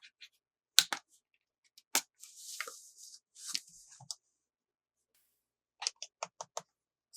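Toy packaging being opened: sharp clicks and plastic rustling, then a quick run of about six scissor snips near the end.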